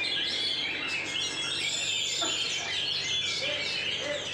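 Oriental magpie-robins singing: a dense stream of fast chirps, trills and whistles, several birds overlapping.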